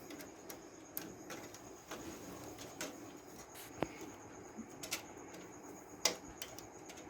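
Faint, irregular handling clicks and scrapes, about six in all, as hands work a plastic protective cap on a graphics card's DVI port at the back of a desktop PC.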